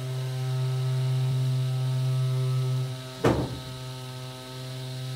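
Small 10,000 RPM DC motor on a ceramic bearing running at full speed, twisting wire for a Clapton coil: a steady hum with overtones. About three seconds in there is one sharp knock, and the hum drops a little for a second or so before building back up.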